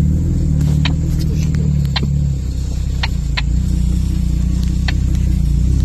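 Off-road vehicle's engine and drivetrain running with a steady low rumble, heard inside the cab at trail-crawling speed. A handful of short, sharp ticks are scattered through it.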